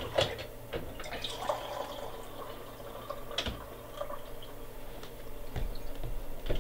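Pump-action coffee airpot being pumped into a mug, giving only irregular drips and spurts with knocks of the pump: the pot is running out of coffee.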